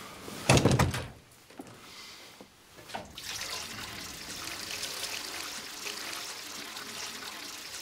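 A door shuts with a thump about half a second in. From about three seconds a steady sound of trickling, running water follows.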